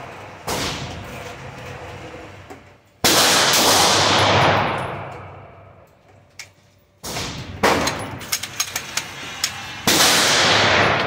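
Four 9mm pistol shots from a Glock 17 fitted with a compensator, spaced a few seconds apart, each ringing on in the echo of an indoor range. Between the third and fourth shots come a run of short sharp metallic clinks.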